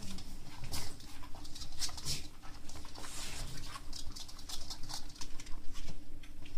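Beagle puppies scampering and scuffling, their claws pattering and scratching on the floor in quick irregular little ticks.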